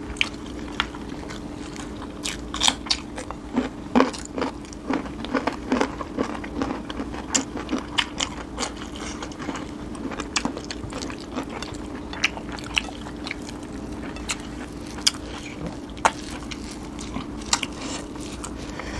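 Mouth-close eating sounds: irregular biting, crunching and chewing, with many short sharp clicks scattered throughout, over a steady hum.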